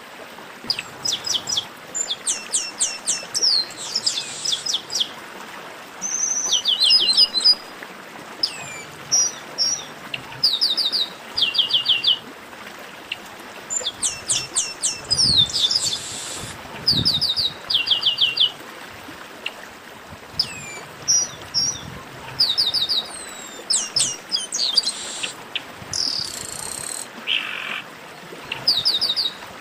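Chestnut-capped blackbirds (garibaldi) singing, several at once: short runs of quick, evenly spaced descending whistled notes, repeated again and again and overlapping, over a steady background hiss.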